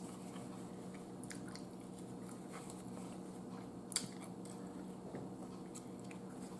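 Close-up mouth sounds of a person chewing a chicken salad sandwich, with a sharper bite into the bread about four seconds in. A steady low hum runs underneath.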